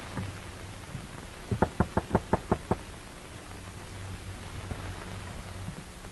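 Fist knocking rapidly on a wooden door, a quick run of about eight knocks about a second and a half in.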